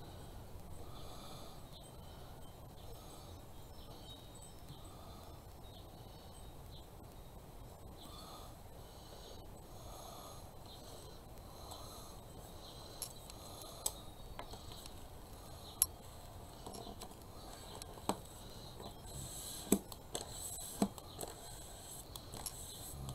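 Faint handling of a printed paper sheet as hands press and smooth it flat, with a few sharp light taps and clicks in the second half.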